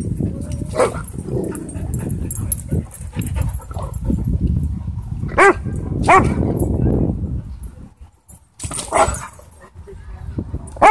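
Dogs barking: several short, separate barks spaced a second or more apart. A low rumble sits beneath the barks for most of the first seven seconds and then drops away.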